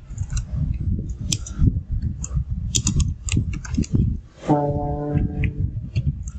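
Typing on a computer keyboard: quick, uneven key clicks over a steady low rumble, with a short held voice sound about halfway through.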